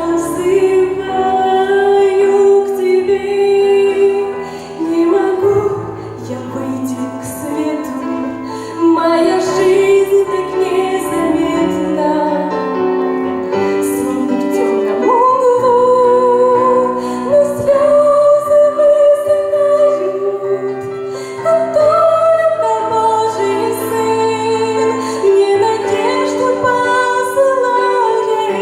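A woman singing a slow Christian song with held notes, over instrumental accompaniment.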